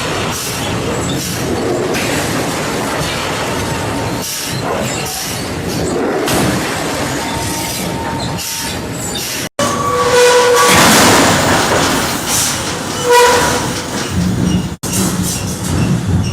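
Forging-factory machinery running: a loud, continuous metallic rumble and clatter, with squealing tones of metal on metal in the later part. The sound breaks off abruptly twice and resumes.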